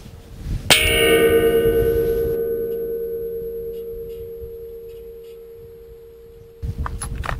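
Steel plate gong target struck by a 260 Remington bullet: one sharp clang less than a second in, then a ringing tone that fades slowly over about six seconds.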